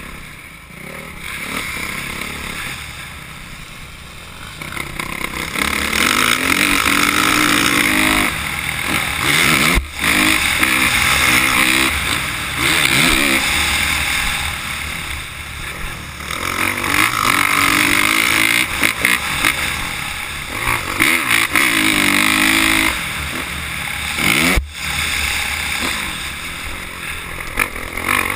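Dirt bike engine being ridden hard around a motocross track, heard from the bike itself: the revs climb and fall again and again through the gears and corners, with two brief sudden drops in level.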